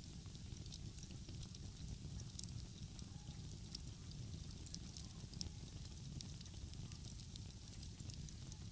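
Wood fire crackling, with frequent small sharp pops and snaps scattered through, over a steady low rumble.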